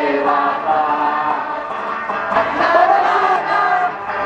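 A group of people singing a religious song together.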